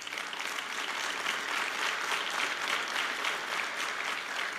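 Large audience applauding steadily, a dense spread of many hands clapping.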